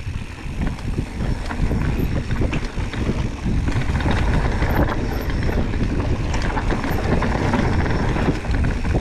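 Propain Tyee enduro mountain bike ridden down a dirt trail, recorded on the bike or rider: wind rushes over the microphone, with a constant clatter and knocking from tyres, chain and frame over rough ground.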